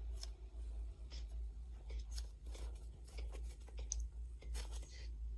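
Faint scattered taps, clicks and rustles of small objects being handled, over a steady low hum.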